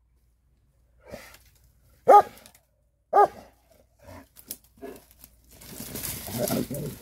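Posavac hound crossbreed barking at a wild boar: a faint bark about a second in, then two loud barks a second apart. Near the end comes a longer stretch of brush rustling and crashing as the boar breaks through the undergrowth.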